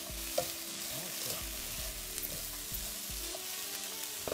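Sliced vegetables sizzling in a nonstick frying pan as a slotted spatula stirs and turns them, with a few light taps of the spatula against the pan.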